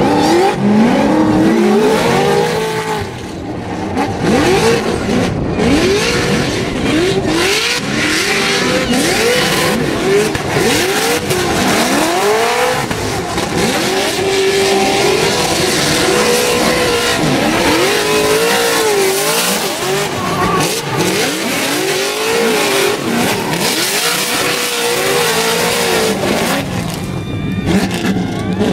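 Drift cars' engines revving hard, the pitch swinging up and down again and again as the drivers work the throttle through the slides, over the screech and hiss of spinning, smoking rear tyres.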